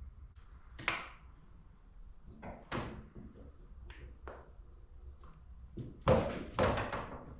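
A few separate sharp knocks and clatters of hard objects being handled on a workbench, then a louder run of clatter about six seconds in.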